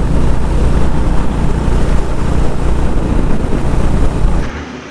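Strong wind buffeting the microphone of a motorcycle being ridden at speed, a loud steady low rumble with rushing noise over it. It cuts off suddenly near the end.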